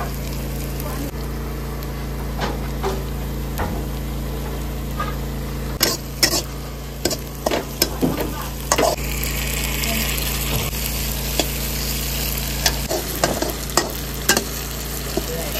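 Onions, tomatoes and fermented soybeans frying in a pan as a spatula stirs them. Bursts of scraping and clicking against the pan come from about six to nine seconds in and again near the end, with a brief rise in sizzling hiss in the middle, all over a steady low hum.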